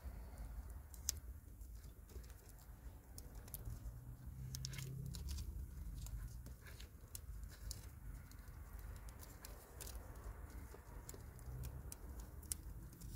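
Faint, irregular small clicks and rustles of hands handling wires and tools while working on a car's cut ignition wiring.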